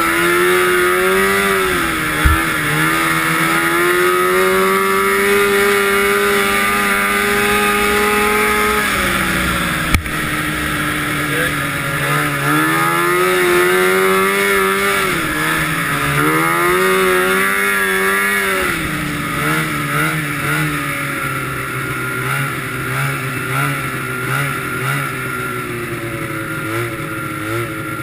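340 cc fan-cooled two-stroke snowmobile engine under race throttle, revving up and easing off several times, then running lower and unevenly at part throttle over the last third. Two sharp knocks come about two and ten seconds in, over a steady rushing hiss.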